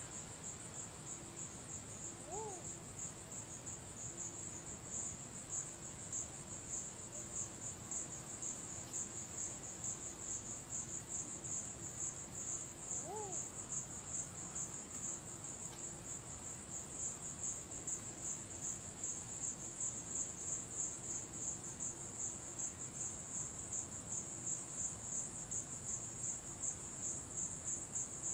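Crickets chirping in a steady, high, pulsing chorus that gets a little louder after about four seconds. Two short faint lower calls rise and fall, once about two seconds in and again about thirteen seconds in.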